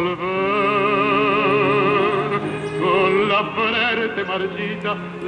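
Operatic tenor singing a tango with strong vibrato over instrumental accompaniment. A long held note runs for the first couple of seconds, and a new phrase starts about three seconds in.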